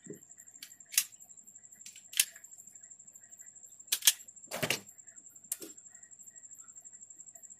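Small hard objects being handled on a workbench: about six sharp clicks and taps, the loudest a quick pair about four seconds in, followed by a duller knock. A faint, steady high-pitched whine runs underneath.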